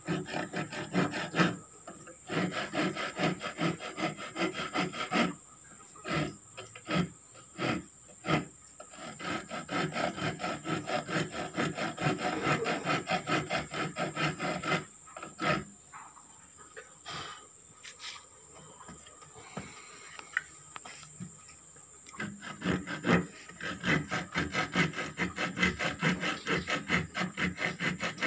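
A small fine-toothed hand saw cutting a piece of wood in quick back-and-forth strokes, about four a second. It stops briefly a few times and goes quieter for several seconds about two-thirds through.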